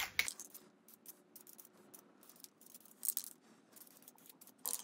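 Aerosol spray paint can being shaken, the mixing ball inside rattling faintly in short bursts, with a denser run of rattles near the end.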